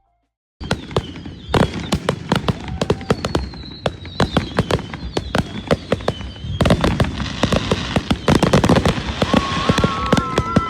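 Fireworks going off in rapid succession: a dense run of bangs and crackles starting about half a second in, with thin whistling tones running through it.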